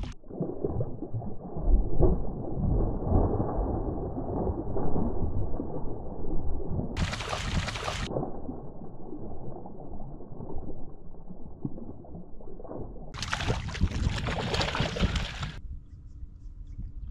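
Muffled rumbling and sloshing of water against a kayak while a hooked bass is fought at the side. About seven seconds in comes a short burst of splashing as the bass thrashes at the landing net, and a longer burst of noise follows later.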